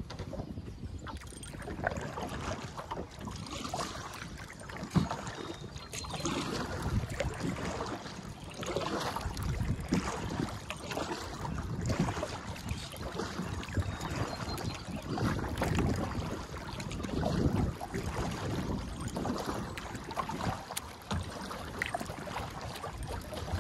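Kayak paddle strokes dipping and splashing in the water every second or two, with wind buffeting the microphone.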